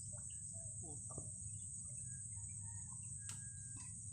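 Steady high-pitched trill of insects in the grass, with a low rumble underneath, a few faint short chirps and a single sharp click about three seconds in.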